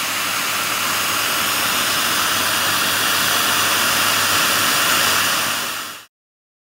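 Hand-held die grinder running steadily, its stone grinding the cast-iron combustion chamber of a classic Mini cylinder head to smooth out the casting. It stops abruptly near the end.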